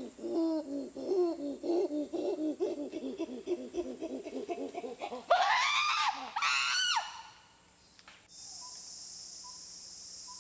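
Chimpanzee pant-hoot: a fast, even series of breathy panting hoots builds for about five seconds, then climaxes in two loud screams that rise in pitch and end about seven seconds in.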